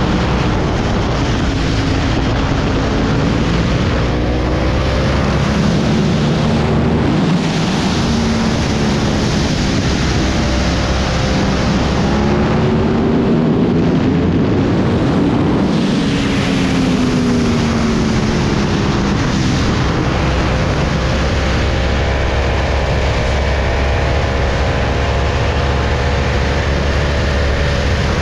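2010 Yamaha YZF-R1's crossplane-crank inline-four, breathing through a Yoshimura slip-on muffler, heard from the rider's seat under heavy wind noise on the microphone. The engine note rises and falls several times as the throttle is opened and closed through the bends, then holds fairly steady near the end.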